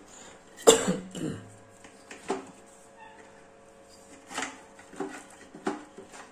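A person coughing and clearing the throat in a few short bursts, the loudest about a second in, over a faint steady hum.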